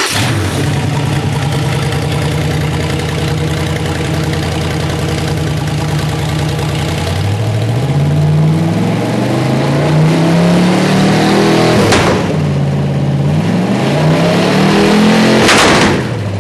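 Freshly rebuilt 1956 Ford 312 Y-block V8, stroked to 358, firing up on an engine run stand with a simple break-in exhaust and settling into a steady fast idle. About seven seconds in it is revved up and back down twice, then drops back to idle near the end.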